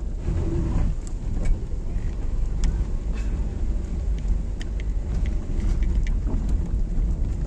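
A car driving, its engine and tyres making a low, steady rumble, with scattered small knocks and rattles.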